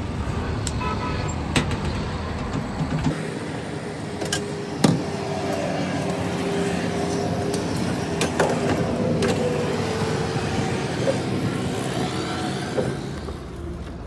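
Car on the move: steady engine and road noise that changes character about three seconds in, with a few sharp clicks and knocks.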